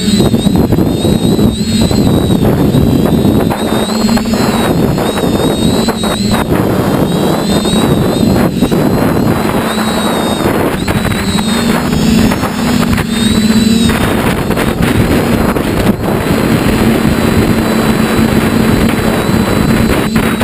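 Motor and propeller noise of a small radio-controlled aircraft, recorded by its own onboard camera: a steady hum with a thin high whine that wavers in pitch, over wind buffeting the microphone.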